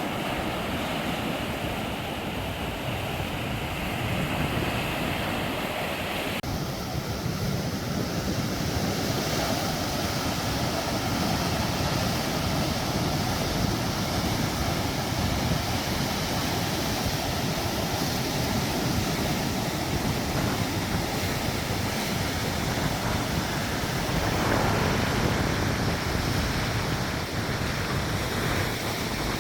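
Sea waves washing against the shore in a steady wash of surf, with some wind on the microphone. The hiss grows brighter abruptly about six seconds in.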